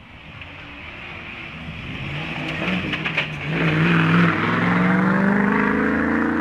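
Off-road competition 4x4's engine under hard throttle on a dirt course, growing louder as it approaches. It holds a steady note, then revs up in a long rising climb near the end, and cuts off suddenly.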